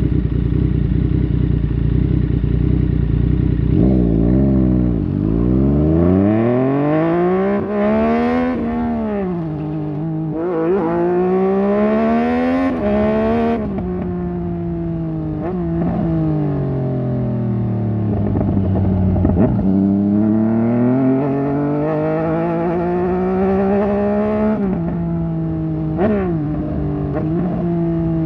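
Yamaha MT-09 Tracer's 847 cc three-cylinder engine through a Fuse Racing aftermarket exhaust, on the move. It holds a steady low note at first, then the revs climb and drop sharply several times as it pulls through the gears. Later it eases and climbs again, with a few quick short rises in revs near the end.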